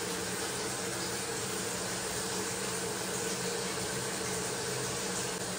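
Steady background noise: an even hiss with a faint low hum, unchanging throughout.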